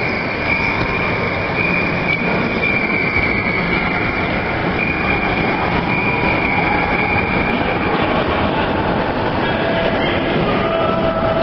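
HO scale model freight train rolling past close by: a steady rushing of wheels on the track with a high steady whine, which gives way to two lower whining tones near the end.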